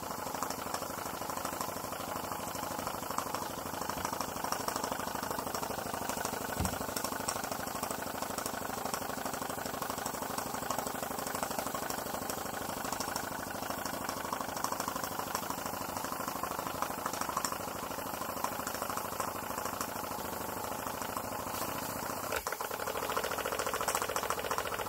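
Graham Industries VR1A double-acting model steam engine running steadily on live steam, turned down to a slow speed, with a fast even beat of exhaust and working parts.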